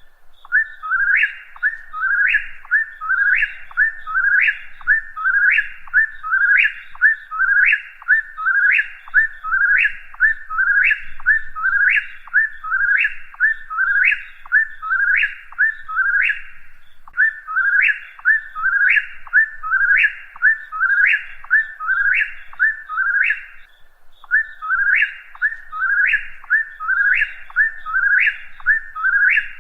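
Whip-poor-will singing, its whistled "whip-poor-will" phrase repeated over and over at about one a second, each phrase ending in a sharp upward slur. The bird breaks off briefly twice, near the middle and about three quarters of the way through.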